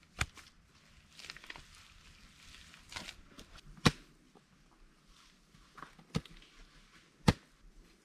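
Irregular sharp knocks, about five of them, the loudest near the middle and about seven seconds in, with rustling and scraping handling noise between them.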